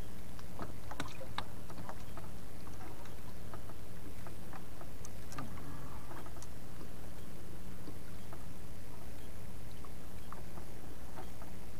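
Small wooden fishing boat (bangka) at sea: a steady low hum with scattered light clicks and knocks, the loudest cluster about a second in.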